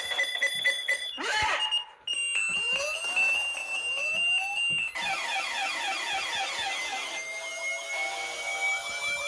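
A string of electronic alarm tones, several of them overlapping: rapid high beeping for about a second, a brief drop-out, then a steady high tone with repeated upward chirps. About five seconds in, a fast warbling chirp pattern takes over, and about two seconds later a slowly rising siren-like tone joins it.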